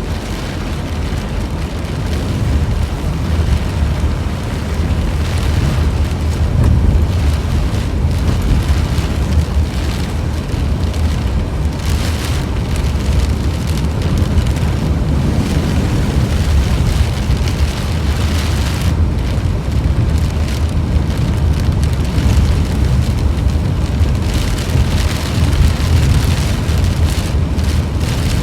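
Light rain falling steadily after a hot spell, as a continuous patter over a loud low rumble.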